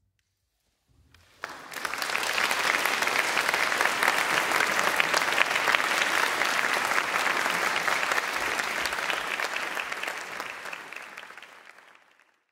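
Audience applauding in a hall. The clapping starts about a second in after a moment of silence, swells quickly to a steady level, and fades out near the end.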